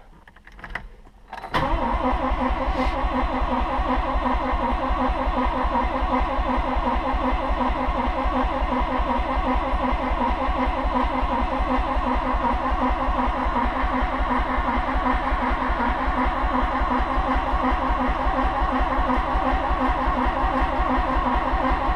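1985 Mazda RX-7's fuel-injected 13B rotary engine being cranked over by the starter with the gas pedal floored and the injector connector pulled, to clear a flooded engine. The steady, evenly repeating cranking starts about a second and a half in and goes on without change.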